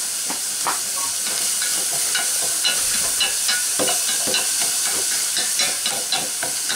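Cooking in a pot over an open wood fire: a steady sizzling hiss with frequent small crackles and pops.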